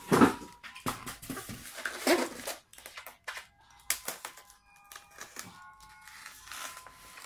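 Polystyrene foam packing case handled and set down on a wooden table, with two loud knocks in the first few seconds. Quieter scraping and crinkling follow as a cutter slices the packing tape along the foam.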